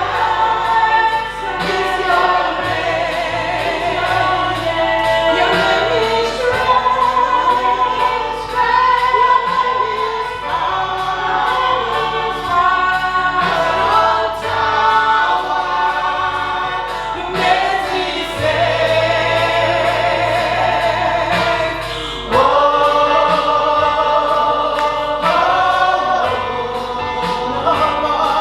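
Church choir singing a gospel worship song over instrumental backing, with voices holding long notes with vibrato.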